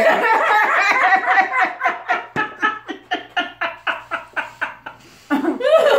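Two women laughing hard together: a long string of short, rhythmic laughs that trails off, then a fresh burst of laughter near the end.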